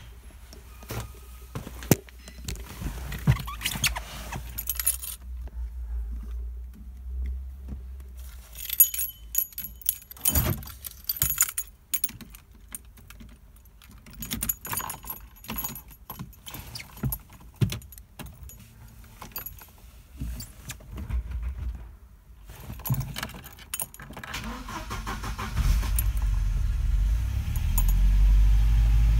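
Keys jangling and scattered clicks and knocks in a car interior, then near the end a Volvo 940's turbocharged four-cylinder petrol engine starts from cold and runs at a steady low idle.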